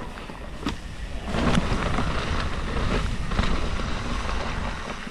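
Commencal Meta mountain bike being ridden along a forest trail: tyres rolling over the ground with scattered clicks and rattles from the bike, and wind buffeting the microphone.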